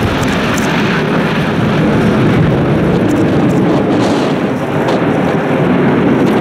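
Loud, steady jet engine rumble from a formation of J-10 fighters' afterburning turbofans climbing away overhead.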